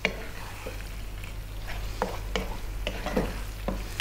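Lamb pieces sizzling as they brown in a thick tomato and spice masala over medium heat, while a wooden spatula stirs them, scraping and knocking against the nonstick wok many times at irregular intervals.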